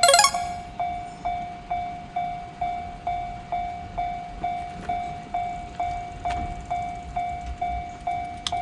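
Japanese level-crossing warning bell ringing steadily, a little over two strikes a second. A short, loud, shrill blast comes right at the start, and a low rumble builds toward the end.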